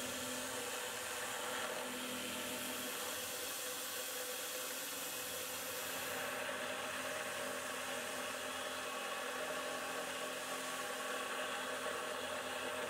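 CNC milling machine cutting aluminium with an end mill under a mist-coolant spray: a steady whir of the spindle and cut mixed with an even hiss. The tone shifts slightly about six seconds in.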